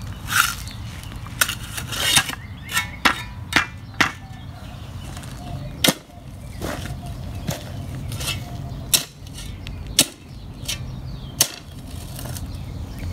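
Steel shovel digging into hard-packed, rocky soil: the blade strikes and scrapes stones in a string of sharp, irregular chinks and crunches.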